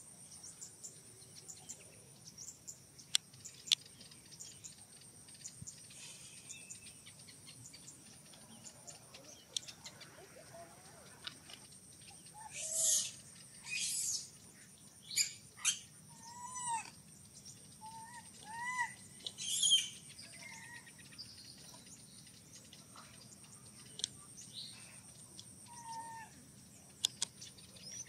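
Baby macaque crying: short whimpers that rise and fall in pitch, with a few loud, shrill squeals in the middle stretch, over a steady high-pitched hum.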